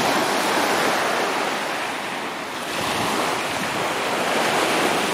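Small lake waves breaking and washing up on a sandy beach, the surf swelling, easing briefly, then swelling again.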